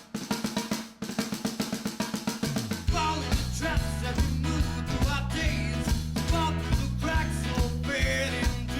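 Background rock music. A quick run of drum hits builds for about three seconds, then the full band comes in with bass and guitar over a steady beat.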